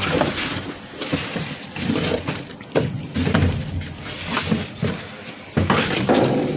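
Rubbish being rummaged and shifted about in a skip with a stick: rustling and scraping with irregular knocks and clatters.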